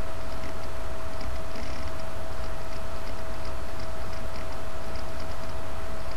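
Steady low hum and hiss with a constant thin tone: the background noise of a computer microphone recording with no one speaking. Faint scattered ticks sound through it.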